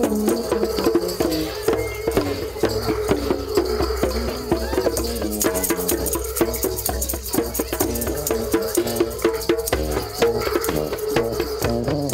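Music with busy percussion: rapid, regular clicking hits over a sustained pitched accompaniment.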